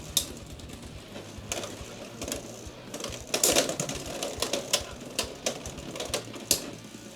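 Two Beyblade X spinning tops whirring and clashing in a plastic stadium, giving sharp, irregular clacks of plastic and metal, with a cluster of hard hits about three and a half seconds in.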